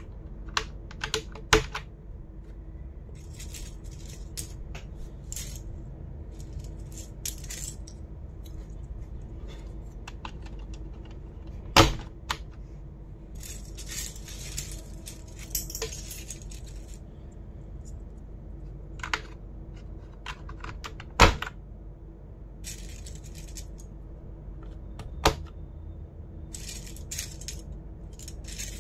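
Plastic keyboard parts being handled during cleaning: a few loud, sharp clicks and clatters several seconds apart, with many lighter clicks and bouts of scratchy rustling between them.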